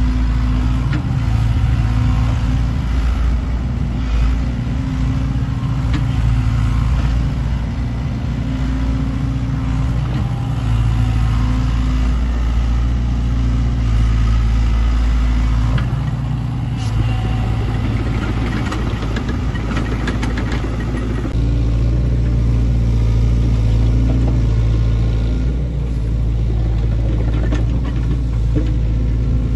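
Sany excavator's diesel engine running steadily under working load, its pitch and level rising and falling in swells every few seconds. A run of short knocks comes a little past halfway.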